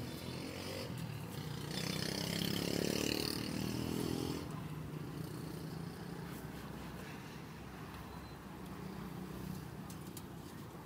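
Street traffic: a steady low engine hum, with a vehicle passing close and loudest from about two to four seconds in.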